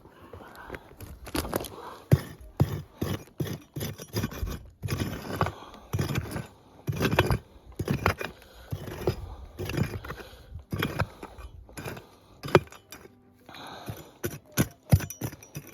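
Digging tool striking and scraping stony ground while digging out a metal-detector target: a run of irregular knocks and scrapes, about two a second.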